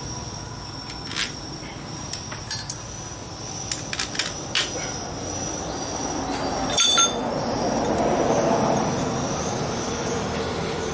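Metal hand tools clicking and tapping against a Honda Blade motorcycle engine, a string of light clicks in the first few seconds. About seven seconds in comes a louder metallic clink that rings briefly, followed by a few seconds of scraping noise.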